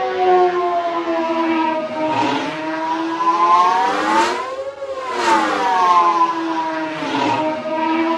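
Vulture droid starfighter engine loop sound effect from the Star Wars prequels: a steady, siren-like engine whine with a layered, wavering pitch. About halfway through, the pitch dips and then climbs back.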